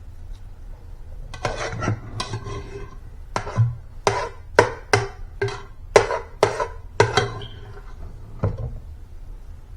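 A kitchen utensil knocking against the rim of a mixing bowl about a dozen times, each hit ringing briefly, as the last mashed potato is knocked off it.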